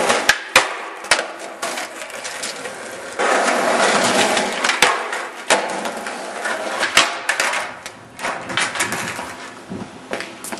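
Skateboard wheels rolling over pavement, with several sharp clacks of the board hitting the ground; the rolling is loudest a few seconds in.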